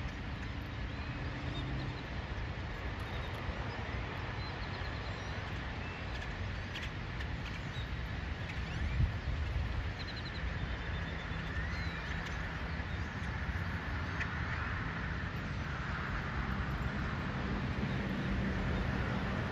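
Outdoor dawn ambience: scattered short bird chirps and quick trills over a steady low rumble and hiss, like distant traffic or machinery.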